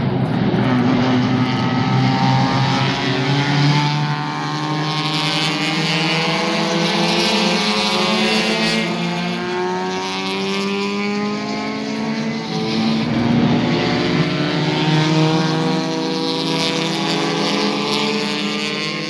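Several Mazda rotary-engined race cars (RX-3 and RX-7s) running one after another through a corner. Their overlapping engine notes rise and fall in pitch as the cars slow into the bend and accelerate out of it.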